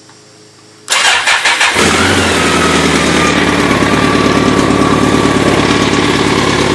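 A 2002 BMW K1200RS's inline-four starts about a second in: a short burst of starter cranking, then it catches and settles into a steady idle. The idle comes through the modified stock muffler, which has a bypass cut from its loud last chamber to the tailpipe, and it is not terribly loud.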